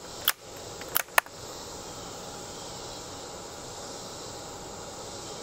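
Three sharp clicks within the first second and a bit as a bolt-action .22 rifle is handled and readied to fire. Then a steady background hum of insects.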